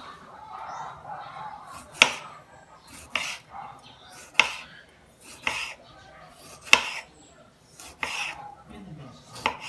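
Kitchen knife slicing a tomato into rounds on a cutting board: a sharp knock of the blade hitting the board about once a second, seven times, starting about two seconds in.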